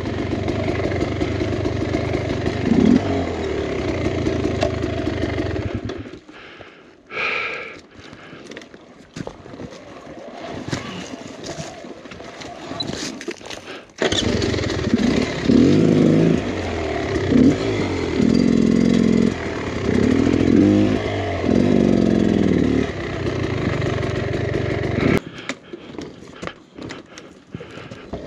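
2023 Beta X Trainer 300 two-stroke dirt bike engine running steadily, then falling much quieter about six seconds in. It comes back suddenly about eight seconds later and revs up and down repeatedly, then drops away again near the end.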